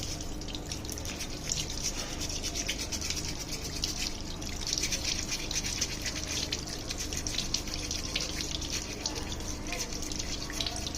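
A small brush scrubbing rapidly back and forth on a washing machine's water inlet valve, clearing built-up dirt from it, over a steady low hum.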